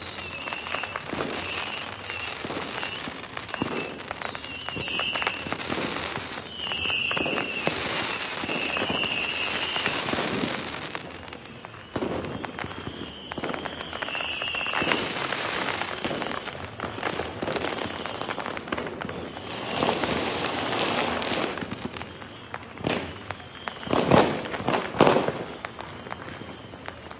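Fireworks going off thick and fast: overlapping bangs and crackling, with a high wavering whistle through the first half and the loudest bangs near the end.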